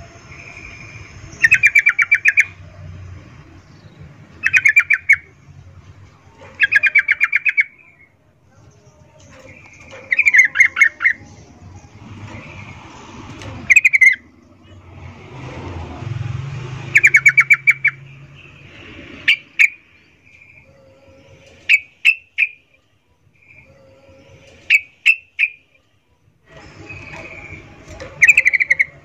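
Yellow-vented bulbul (trucukan) calling in short bursts of fast stuttering notes, one burst every two to three seconds, with sharp single chips in small groups in the second half. It is a female's mating call to a male.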